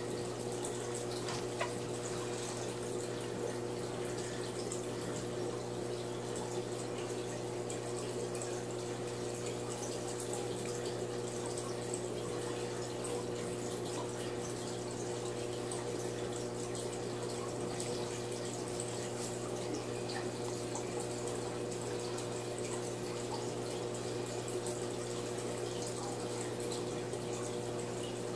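Steady hum of running aquarium equipment with a constant trickle of water, and a few faint small splashes and ticks from a tilapia being dunked by hand in a plastic tub of water.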